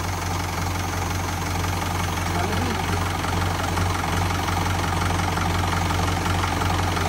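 Tractor engine idling steadily: a constant low drone with an even, fast firing beat.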